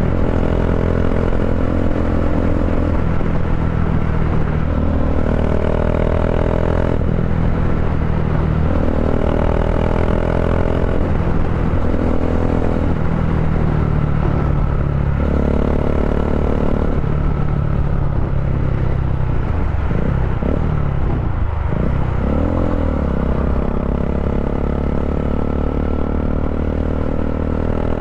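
Bajaj Dominar 400's single-cylinder engine running through an Akrapovic-style slip-on muffler, with the catalytic converter replaced by a resonator, cruising steadily at highway speed. About twenty seconds in, the note drops and then climbs again as the throttle eases and reopens.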